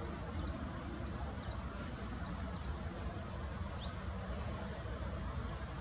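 Steady low background rumble with thin, high-pitched chirps of small birds over it: a quick run of them in the first two and a half seconds, then a single rising chirp about four seconds in.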